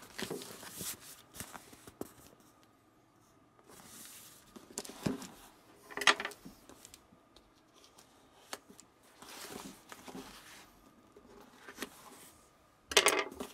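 A blade slitting packing tape on a cardboard box, with the box being handled: scattered short scrapes and rustles, the loudest about six seconds in and near the end.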